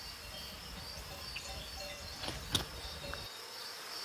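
Meadow insects chirring steadily and high-pitched, with a few short chirps over the top. A low wind rumble cuts off suddenly about three seconds in, and two sharp clicks come just before that.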